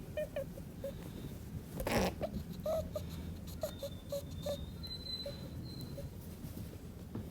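Angry rabbit making short, high-pitched squeaks at irregular intervals, with one louder hissing burst about two seconds in.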